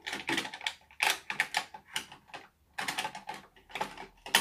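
A makeup brush scratching and tapping against an eyeshadow compact as it is loaded with shadow: a quick, irregular run of short, dry strokes and taps, about three to five a second.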